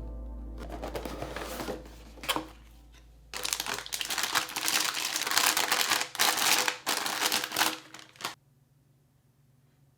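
Packaging crinkling and rustling as it is handled, light at first and then loud and dense from about three seconds in, stopping abruptly about eight seconds in.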